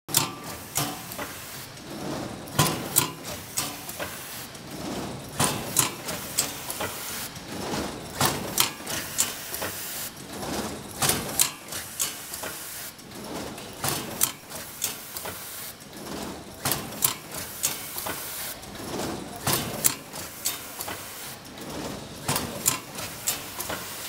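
Microwave popcorn bag packing machine running: sharp mechanical clacks from its moving parts, pneumatic actuators among them, come every second or two over a steady clatter and hiss.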